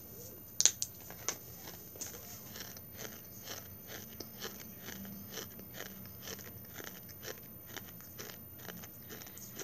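A person biting into and chewing crunchy food close to the microphone: a few sharp crunches about half a second in, then steady crunching about twice a second.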